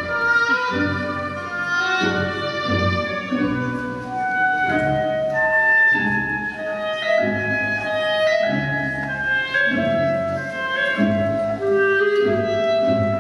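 Classical orchestral ballet music playing: a melody of held notes over a pulsing low accompaniment.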